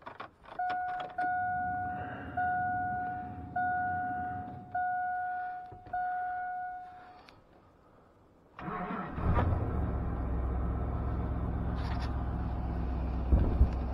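GM pickup's dash warning chime dinging six times after the key is turned on, then the engine cranks briefly, catches with a flare and settles into a steady idle on a cold start.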